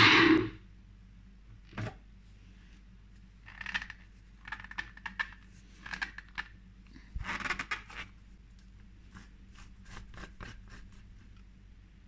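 The Sencor Nutri Blend's motor cuts off in the first half-second. Then a sharp plastic click and several short bursts of scraping plastic follow as the blending cup is lifted off the motor base and its blade unit is twisted and unscrewed, with a few faint ticks near the end.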